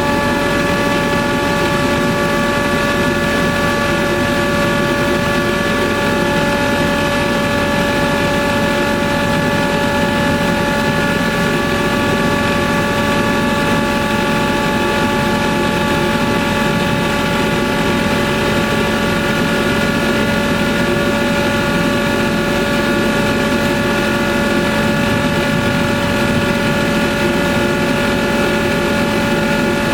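Ingersoll Rand UP6-10-125 10 HP rotary screw air compressor running steadily: an even, loud machine hum and whine made of several fixed tones over a constant rush of air.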